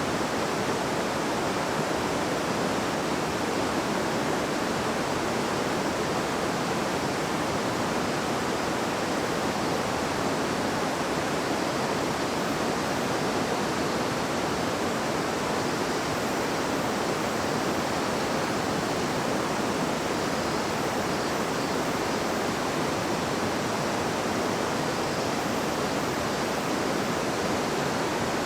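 River water babbling and rushing over stones, a steady, unbroken flow.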